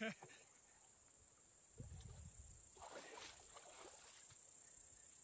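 Faint, steady high-pitched chirring of insects, with a low thump about two seconds in and a brief rustle around three seconds.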